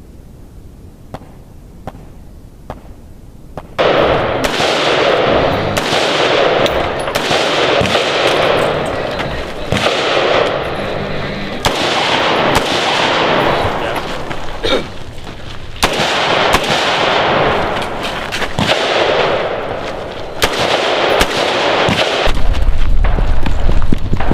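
Gunfire on a shooting range. A few faint shots come first, then from about four seconds in there are loud, rapid strings of shots with echo. A low rumble rises near the end.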